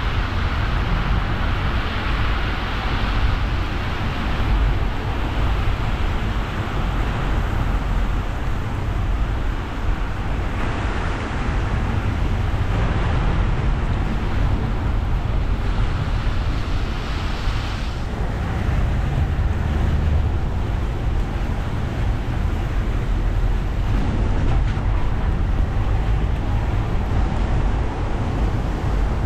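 A car driving on rain-wet roads: a steady low rumble of road and engine noise under the hiss of tyres on wet tarmac. The hiss swells in the first few seconds and again from about ten seconds in, then drops away sharply about two-thirds of the way through.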